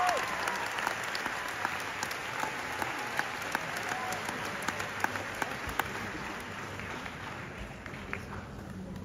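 Audience applauding, a dense patter of clapping that slowly dies away over the last few seconds.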